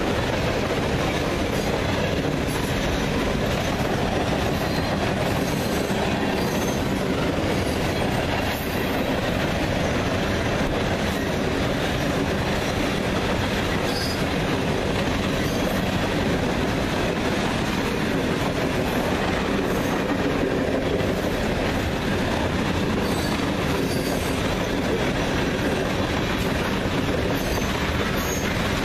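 Freight train rolling through a grade crossing, a steady noise of wagons running over the rails with no break.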